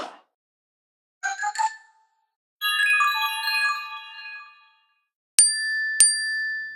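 Built-in iPad ringtones and alert tones played one after another, with short silences between them. First comes a brief chime, then a longer chime of several notes, then two sharp dings about half a second apart, the second ringing on.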